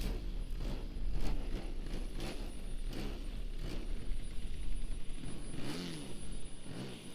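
DA50 gas engine of a Pilot RC Yak 55M model plane running, under heavy low wind rumble on the microphone.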